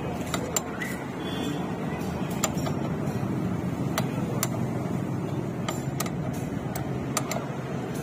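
Scattered light metallic clicks from a spanner on the rear drum-brake rod adjuster nut of a motorcycle, over a steady wash of street traffic noise.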